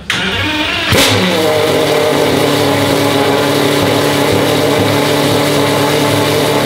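Pagani Huayra R's naturally aspirated V12 with unrestricted race exhaust starting up: it fires with a sharp flare of revs about a second in, then settles into a loud, steady idle.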